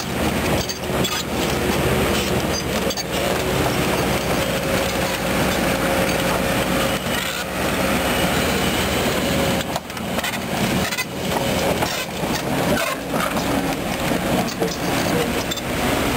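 Kobelco SK200 excavator travelling on its steel crawler tracks: the diesel engine runs steadily under load while the track plates clank over the rollers and idlers in irregular knocks.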